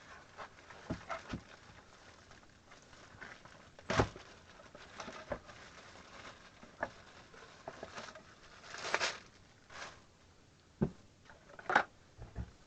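Scattered plastic clicks and knocks of a battery pack being unlatched and pulled out of a cordless impact wrench and handled, with a short rustle a little past halfway.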